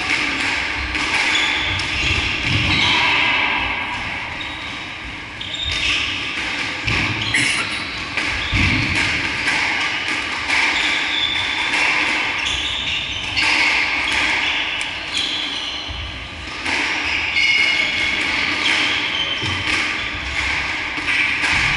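Squash rally: the ball smacks off rackets, walls and the wooden floor in a run of sharp knocks, mixed with short squeaks of court shoes on the floor.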